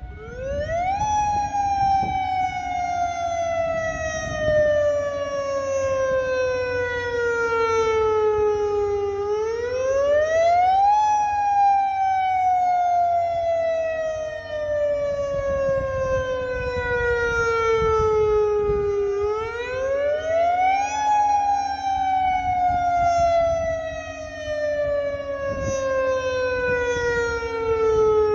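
Federal Signal Modulator 8032B electronic outdoor warning siren sounding its wail tone. The pitch climbs quickly for about a second, then sinks slowly for about eight, and the cycle repeats three times.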